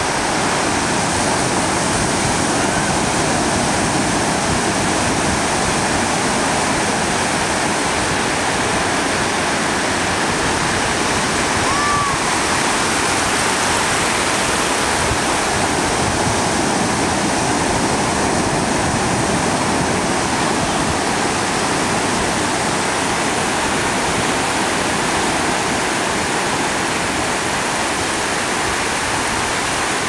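Ocean surf breaking on a sandy beach: a steady, even rush of water noise with no distinct wave-by-wave surges.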